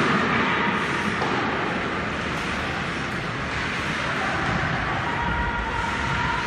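Ice hockey game in an indoor rink: a steady wash of noise from skates on the ice and play, with faint distant shouts.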